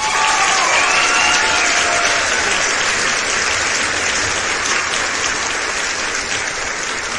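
A large crowd cheering and applauding, bursting in suddenly, with a few voices shouting above it in the first couple of seconds, then slowly dying down.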